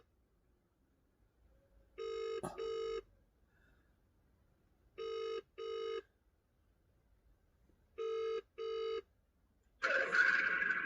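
Telephone ringback tone heard over a phone on speaker while a call is waiting to be answered: a double ring repeated every three seconds, three times. About ten seconds in the ringing stops and a hiss of line noise comes in as the call is picked up.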